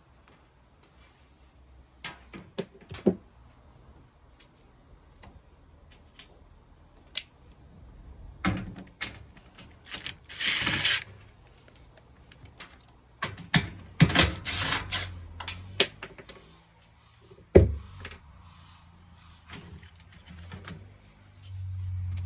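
Hands working on a washing machine's door and door-lock mechanism. Scattered sharp clicks and knocks, two short scraping bursts around the middle, and one sharp knock a few seconds later.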